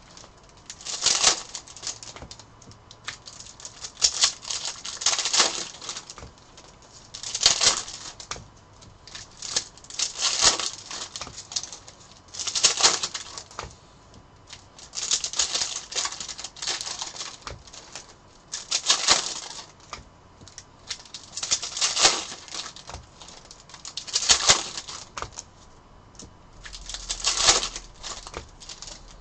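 2020 Bowman baseball cards and their foil pack wrappers being handled, with a short papery swish every two to three seconds as cards are slid and flipped off the stack.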